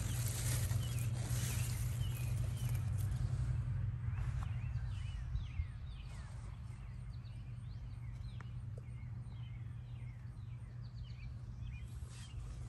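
Small birds chirping, many short quick chirps scattered throughout, over a steady low hum. A louder rush of wind-like noise fills the first few seconds.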